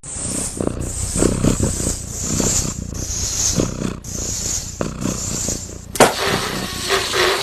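A cat hissing and growling in repeated bursts; a different, louder sound cuts in abruptly about six seconds in.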